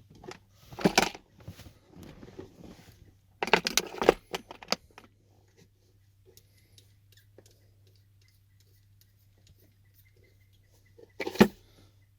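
Small hard objects clattering and rattling as they are handled and moved, in three short bursts: about a second in, again around three and a half seconds in, and once near the end, with quiet between.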